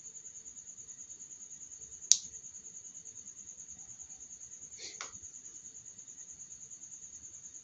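A cricket chirping in a fast, even pulse, with one sharp click about two seconds in and a short scrape about five seconds in as a phone ring holder is handled and pressed onto a plastic phone case.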